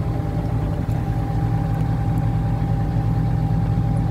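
Excavator's diesel engine running steadily at idle, with a thin steady whine over it.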